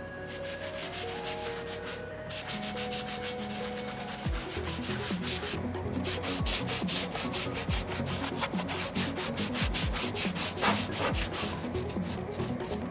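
Hand sanding sponge rubbed in quick back-and-forth strokes over a hardwood cutting board, a rhythmic scratchy rasp that gets louder and more vigorous after about four seconds.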